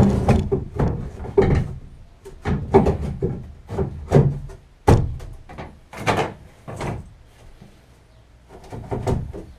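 A run of irregular knocks and clunks, like hard panels or objects being handled and set down, with a quieter gap before a last cluster near the end.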